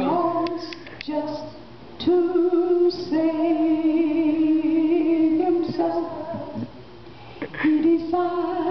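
A woman's voice singing unaccompanied in long held notes, with a short break about two-thirds of the way through.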